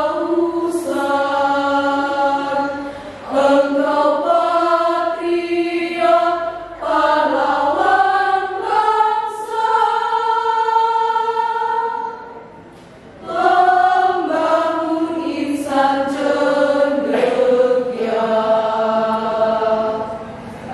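Women's choir singing in several parts, with a short pause about twelve seconds in.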